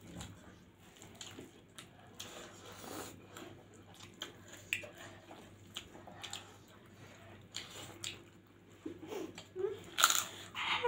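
Eating with the hands: fingers squishing rice and lentil dal on steel plates, with chewing and biting, and a louder bite near the end.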